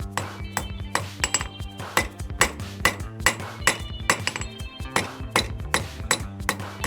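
Blacksmith's hammer striking a steel bottle opener on an anvil in a steady rhythm of about three blows a second, each blow ringing; this is the finishing work to clean up the piece's bottom.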